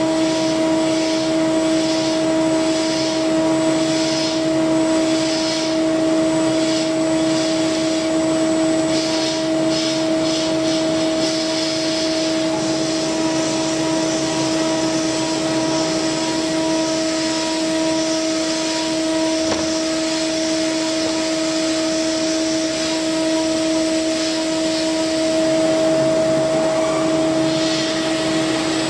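CNC milling machine spindle driving an end mill through a metal workpiece: a steady whine that holds one pitch throughout, under a cutting hiss that swells and fades in patches as the cutter works.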